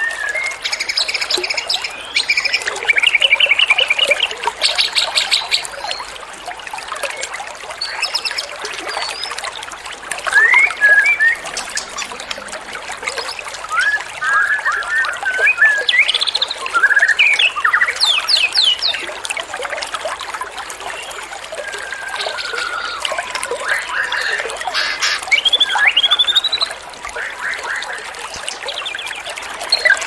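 Small songbirds singing in quick phrases: fast trills and chattering runs, with sharp whistles that sweep up or down, over a steady hiss of running water.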